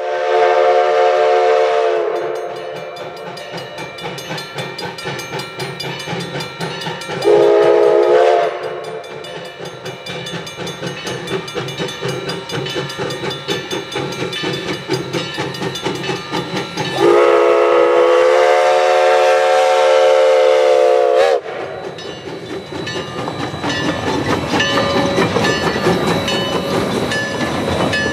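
Narrow-gauge steam locomotive Alaska Railroad No. 152 chugging out of its station, its steam whistle blowing three blasts: a long one, a short one, then a longer one of about four seconds. The steady chuffing of the locomotive runs between the blasts, and the rumble of the moving train grows near the end.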